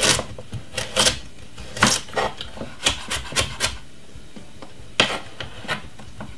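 Chef's knife cutting and scraping a carrot on a wooden cutting board: a string of irregular sharp strokes, with a short pause a little over halfway through before the last few.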